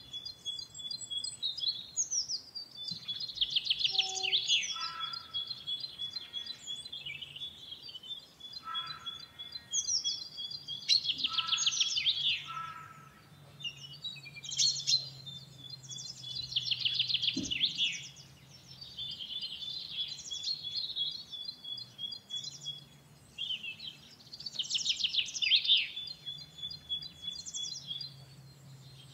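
Farmyard ambience of many small birds chirping and twittering in quick clusters of high notes, with a faint low hum coming and going underneath and a single short knock past the middle.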